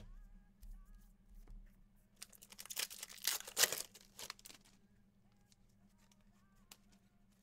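Foil trading-card pack being torn open, a burst of ripping and crinkling wrapper about two to four and a half seconds in.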